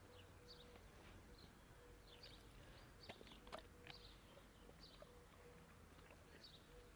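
Near silence, with faint bird chirps repeating in the background and a few soft taps about halfway through.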